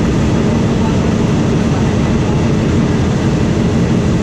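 Steady running noise of a wooden-bodied railway passenger carriage moving at about 60 km/h, heard from inside with the windows open.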